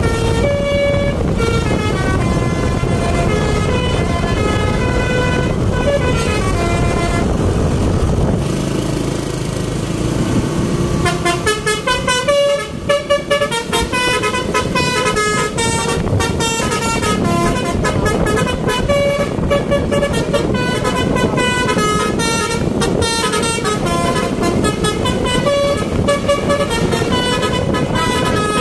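Bus telolet horn, a Basuri multi-tone horn, playing a tune of quick stepped notes over the rumble of traffic. The notes thin out about eight seconds in, then come back in a faster, busier run from about eleven seconds on.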